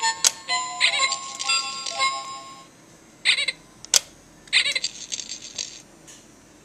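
Interactive Iggle Piggle plush toy playing an electronic music jingle from its built-in speaker, followed by short bursts of warbling chime-like tones, with a couple of sharp clicks.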